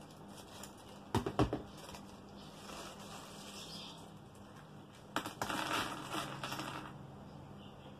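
Scissors snipping open a thin plastic bag about a second in, then the bag crinkling as it is pulled apart. About five seconds in, a pile of small aquarium air-line volume control valves is tipped out and clatters onto the tabletop for a second or two.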